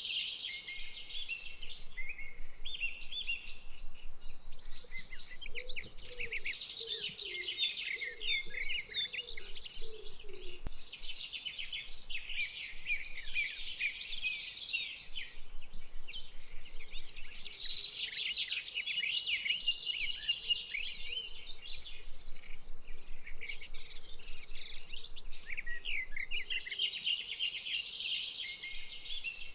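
A dense chorus of many small birds chirping and twittering at once, with rapid overlapping calls.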